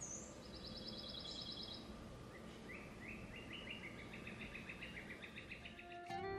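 Songbirds singing over steady outdoor background noise. It starts with a short high rising call, then a fast high trill lasting about a second, then from a different pitch a longer series of repeated rising chirps running for several seconds.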